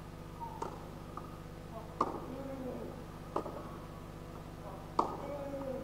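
Sharp knocks of a tennis ball, a few of them seconds apart, the loudest about five seconds in, likely the racket striking the serve. Faint crowd voices underneath.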